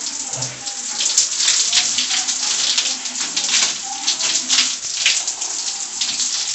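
Shower water running and splashing: a steady hiss broken by many irregular splatters.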